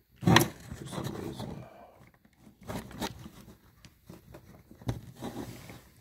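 Fumbling handling noises as a micro HDMI plug is worked at a Raspberry Pi 4's micro HDMI port: a knock right at the start, then uneven scraping and rubbing with scattered small clicks.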